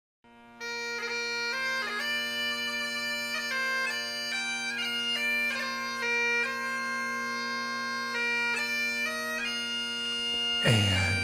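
Bagpipe music: a melody of stepped notes over one steady drone, starting after a brief moment of silence. A loud, deep low sound swells in underneath near the end.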